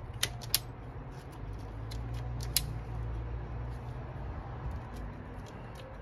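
Self-adjusting wire strippers clicking as they grip and bite into a battery cable's insulation, with a few sharp clicks (the loudest about a quarter second, half a second and two and a half seconds in) over a low steady hum.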